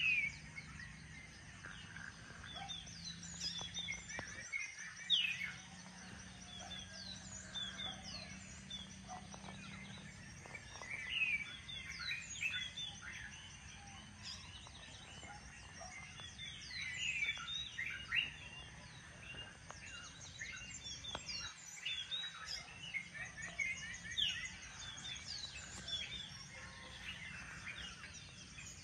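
Dawn chorus: many small birds chirping and calling in quick, overlapping short notes, over a faint steady low hum.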